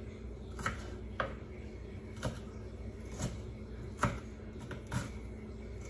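Kitchen knife chopping green pepper on a wooden cutting board: slow, separate knife strokes about one a second, each a sharp knock on the board.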